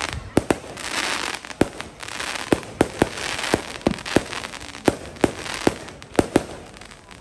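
Fireworks display: aerial shells bursting in an irregular string of sharp bangs, about two a second, with a rushing haze between them. The bangs thin out near the end.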